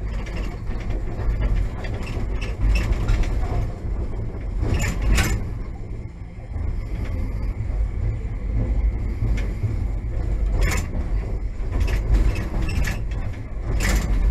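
Kagoshima City tram running, heard from inside the car: a steady low rumble of wheels and running gear, with sharp clacks as the wheels cross rail joints and the crossings of a track junction. There are two clacks about five seconds in, one near eleven seconds and another pair near the end.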